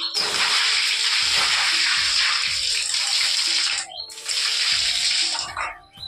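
Water poured from a plastic bucket splashing across a wet shed floor as it is swept with a grass broom: one long pour, a short break about four seconds in, then a second shorter splash.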